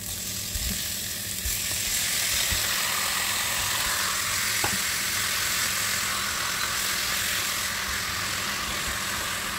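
Raw chicken pieces frying in hot oil with sautéed onion and garlic in a nonstick pan, a steady sizzle that grows louder about a second and a half in as the chicken lands in the pan. A spatula stirs the pieces, with one sharp click about halfway through.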